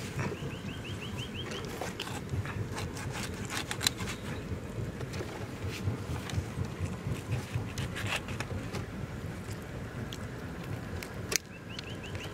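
Roasted waterhen being torn apart by hand: scattered small clicks and crackles of skin and bone over a steady low rumble. A quick run of short, high, rising chirps sounds near the start and again near the end.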